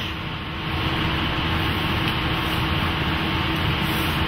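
Steady ventilation hum and hiss of cleanroom air handling, with a faint steady tone in it; it grows a little louder about half a second in and then holds even.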